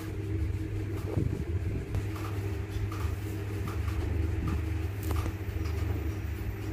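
Steady low hum of a running motor, with a couple of sharp clicks and faint short high chirps repeating about every three-quarters of a second from about two seconds in.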